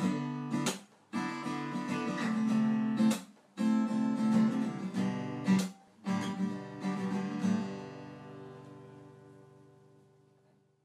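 Outro music: strummed acoustic guitar chords with brief breaks, ending on a final chord that rings out and fades away.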